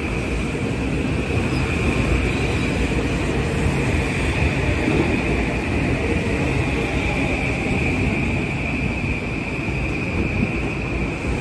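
Kawasaki M8 electric multiple-unit train running past close by and pulling out of the station: a steady rumble of wheels on rail, with a constant high-pitched hum over it.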